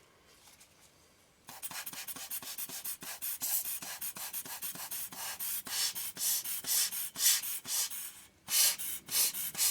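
Quick, scratchy rubbing strokes by hand, several a second, starting about one and a half seconds in with a short break near the end.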